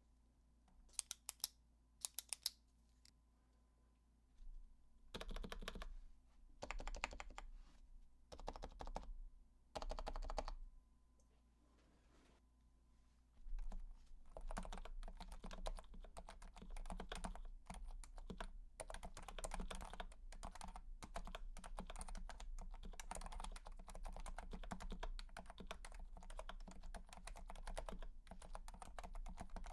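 A retractable Bic Clic pen clicked a few times as a volume reference, then a Realforce RGB tenkeyless keyboard with 55 g Topre switches on MX-style stems and GMK keycaps typed on. Short runs of keystrokes come first, then steady continuous typing from about halfway in.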